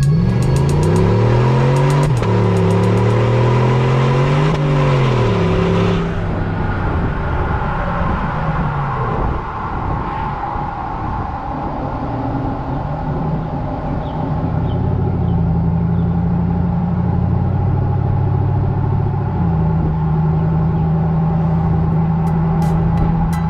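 V8 engine of a 2020 Chevrolet Colorado running through a hand-built titanium exhaust with a small bullet muffler. For about the first six seconds its pitch rises and falls as the truck accelerates on the road, over tyre and road noise. After that the road noise is gone and the engine note is lower, then it settles into a steady held speed with an even rumble from about the middle on.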